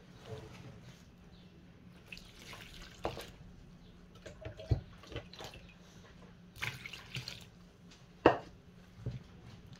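Water poured into flour in a plastic mixing bowl, twice, while a wire whisk knocks and scrapes against the bowl, mixing batter. The loudest sound is a sharp knock of the whisk about eight seconds in.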